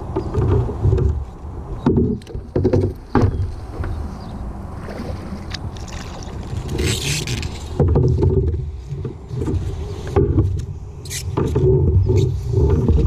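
Small boat on a pond being worked from: irregular low knocks and sloshing from the hull and the handling of gear, with scattered clicks and a short hiss about seven seconds in.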